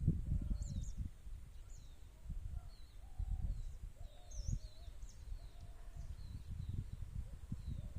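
Wind buffeting the microphone in uneven gusts, strongest at the start, with birds chirping and calling throughout.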